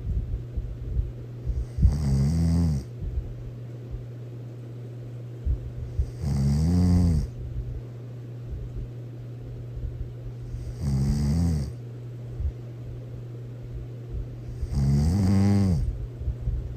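A person snoring loudly and regularly: four snores, each about a second long and rising and falling in pitch, about every four and a half seconds, over a steady low hum.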